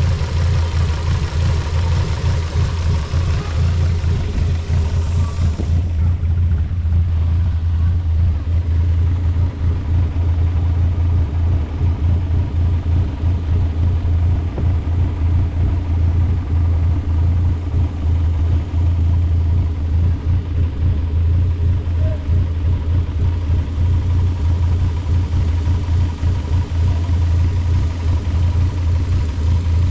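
Fiat Stilo Abarth 2.4 20V five-cylinder engine, fitted with a custom carbon-fibre intake manifold, idling steadily with a low hum. A lighter hiss over it drops away about six seconds in.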